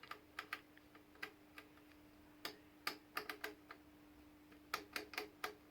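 Coarse frequency selector switch of a 1940s DuMont Type 208-B oscilloscope being turned, a series of irregular sharp clicks, over a faint steady hum.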